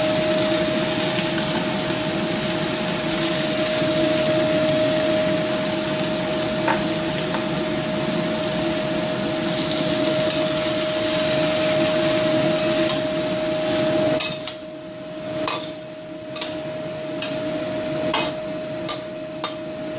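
Cabbage frying in a pan with a steady sizzle over the hum of a kitchen exhaust fan. About fourteen seconds in the sizzle drops, and a utensil knocks against the pan six or seven times as the cabbage is stirred.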